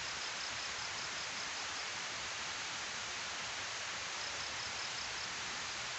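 Steady rush of water pouring down a concrete weir spillway. A high, rapid chirping, about five even pulses a second, runs over it for the first two seconds and again briefly about four seconds in.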